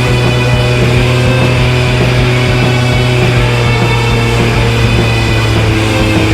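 Background rock music, loud and continuous, with a steady low drone underneath.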